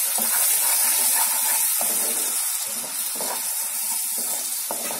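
Spice paste and freshly added whisked yogurt sizzling in hot mustard oil in a pan while a spatula stirs and scrapes it round, the masala being fried down. A steady high hiss with irregular scraping strokes under it, easing slightly toward the end.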